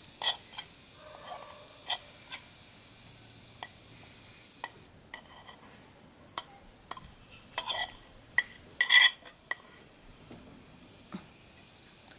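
A steel spoon scraping and tapping spices off a ceramic plate into a ceramic bowl: a string of irregular sharp clinks and short scrapes, busiest and loudest about eight to nine seconds in.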